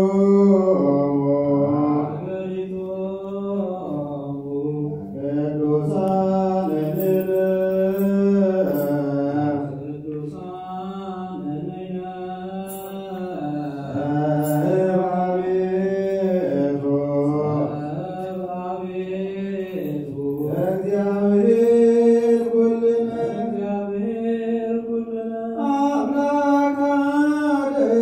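Ethiopian Orthodox liturgical chanting: voices hold long, slowly sliding notes that step up and down in the church's Ge'ez chant style, with a few brief high rattles.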